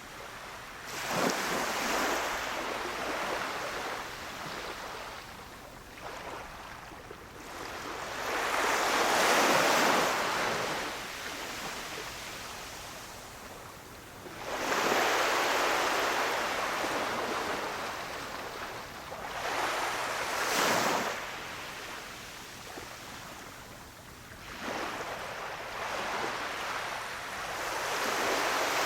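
Sea waves breaking gently on a beach, one after another: about five surges of surf rise, wash in and ebb away, each a few seconds apart.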